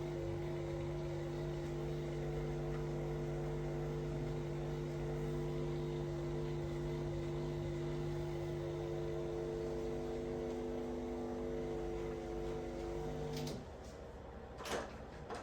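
Electric motor running with a steady hum, switching off about 13 seconds in, followed by a couple of sharp clicks.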